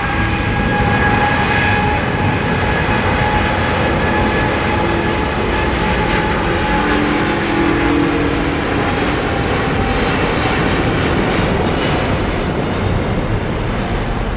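Airbus A330-900neo's Rolls-Royce Trent 7000 turbofan engines at takeoff thrust during the takeoff roll: a loud, steady rush of jet noise with a high engine whine that sinks slightly in pitch as the aircraft passes.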